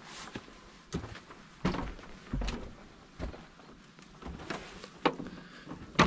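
A string of irregular wooden knocks and thuds, about one a second: footsteps on old plank porch boards and a hand trying a wooden door held shut by a padlocked iron hasp.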